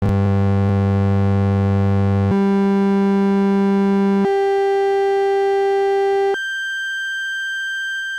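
Casio VL-1 (VL-Tone) pocket synthesizer playing its waveform 0 'piano' tone: four held notes of about two seconds each, stepping up in pitch. The buzzy, square-wave-based tone is quite bassy on the low notes, and the top note is thinner and quieter.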